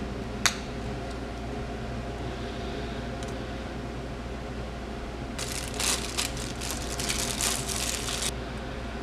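A small clear plastic memory-card case snaps with one sharp click about half a second in. Later a clear plastic bag crinkles for about three seconds as it is handled. A steady low hum lies under both.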